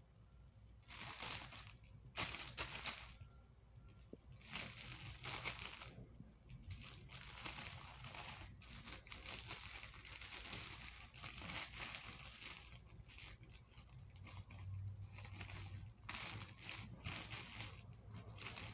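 Clear plastic bag crinkling in irregular bursts as it is handled close to the microphone.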